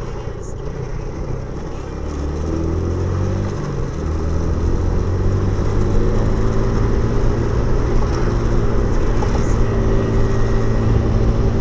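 Suzuki Intruder 125's single-cylinder four-stroke engine running under way, heard from the saddle. It picks up in pitch for a couple of seconds, dips briefly about four seconds in, then holds a steady, slightly louder run.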